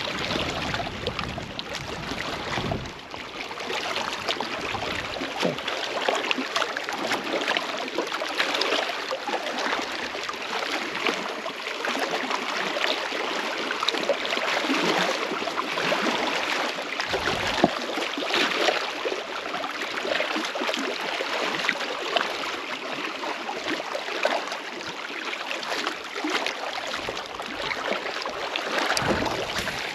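Small waves lapping and splashing against the rocks of the shoreline: a steady wash with many small splashes and clicks, and a few dull low thumps now and then.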